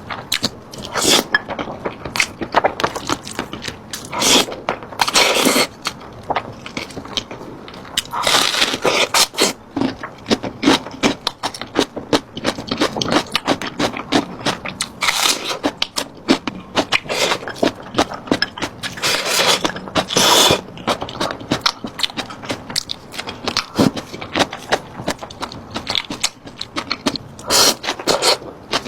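Close-miked eating sounds: dense crunching and chewing clicks, with louder bursts of biting every few seconds.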